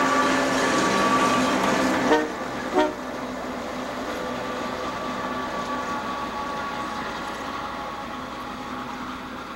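Diesel freight locomotive passing close with its horn sounding in steady tones. Two sharp clicks come about two and three seconds in. After them the train's running sound is quieter, with fainter steady tones, and slowly fades.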